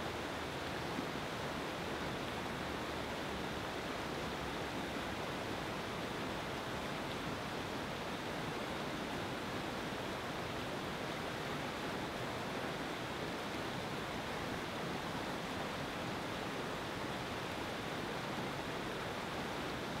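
River rapids: fast, churning whitewater making a steady, even rush.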